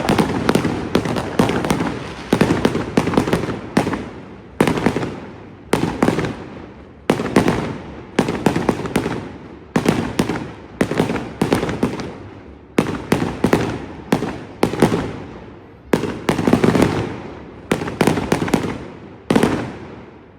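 Fireworks display: aerial shells bursting in quick runs of loud bangs, several a second. Each bang trails off in a rolling rumble, with short lulls between volleys.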